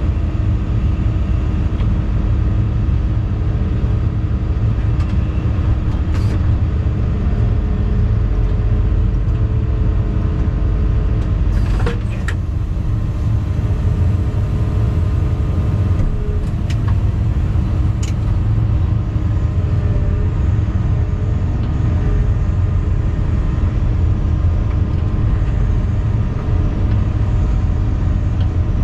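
Diesel engine of a 2018 Volvo EC220E 25-tonne excavator running steadily, heard inside the cab while its hydraulics work a paver-laying grab. A few sharp clicks and knocks come through, the loudest about twelve seconds in.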